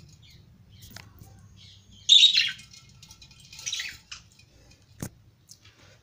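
Budgerigars chirping in two short bursts, about two seconds in and again near four seconds; a single sharp click near the end.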